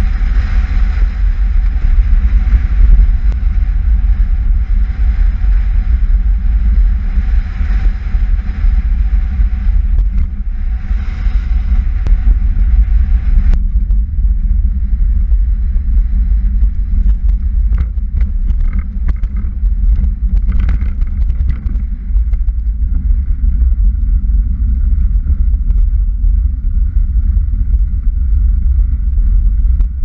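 Strong, gusty wind buffeting the microphone over the low rumble of a velomobile's tyres rolling on the road. The sound changes abruptly about halfway through, with a few light clicks a little later.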